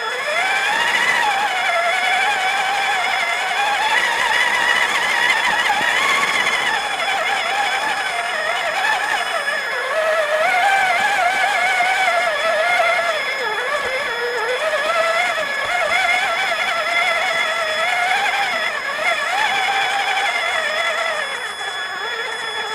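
Electric toy truck's motor and gears whining as it drives, the pitch rising and falling with its speed, over a few steady high electronic tones.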